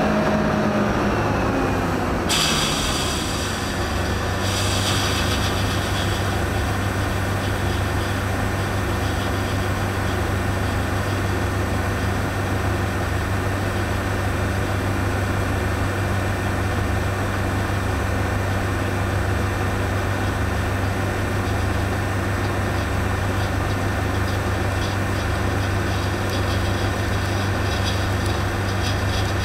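Steady diesel drone of the harvest machinery. About two seconds in, the New Holland CX820 combine's unloading auger starts pouring grain into an empty metal trailer, adding a continuous hiss of falling grain.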